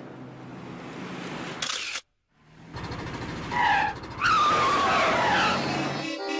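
Car sound effect: an engine rumbling and tyres squealing in high, bending glides, broken by a sudden moment of silence about two seconds in.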